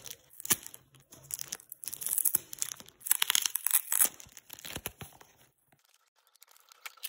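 Clear plastic shrink wrap being cut with scissors and torn and peeled off a cardboard trimmer box, crinkling and crackling. A couple of sharp snips come near the start, and the crackling dies away for the last couple of seconds.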